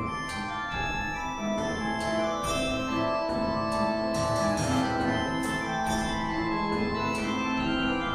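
Background music led by an organ-like keyboard: held notes and chords that change every second or so, with sharp struck attacks recurring through it.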